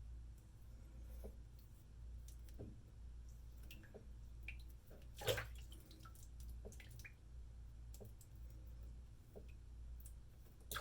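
Quiet, close straight-razor touch-up shaving: faint scattered ticks and small wet sounds, with one brief louder scrape about five seconds in.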